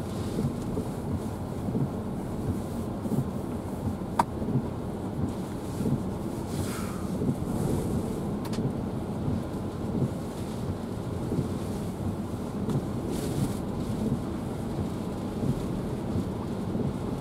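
Hurricane wind gusting and rain, heard from inside a stopped vehicle as a steady low rush that rises and falls. There is one sharp click about four seconds in.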